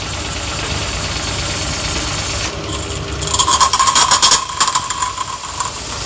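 Electric pressure washer's motor and plunger pump running steadily. A little over three seconds in, the spray gun opens and a high-pressure water jet hisses with a steady whine and rapid clicking, stopping just before the end.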